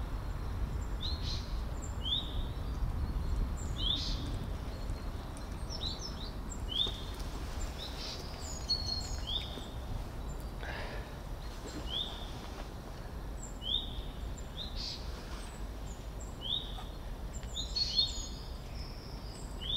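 A small songbird chirping over and over, a short rising note about once a second with a few higher chirps between, over a steady low outdoor rumble.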